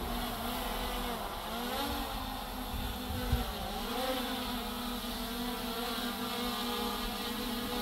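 Propellers of a DJI Mini 3 Pro drone hovering close by, a steady whine whose pitch dips and rises twice as the drone adjusts its position. A short knock sounds a little over three seconds in.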